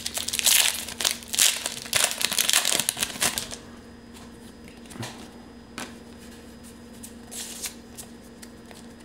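Foil wrapper of a Pokémon card booster pack crinkling as it is torn open, for about three and a half seconds. After that, a few soft rustles and clicks as the cards are handled.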